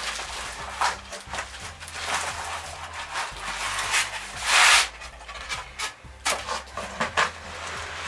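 Cardboard of a large shipping box being scraped, pulled at and cut with scissors: a run of scratchy rasps, the longest and loudest about four and a half seconds in.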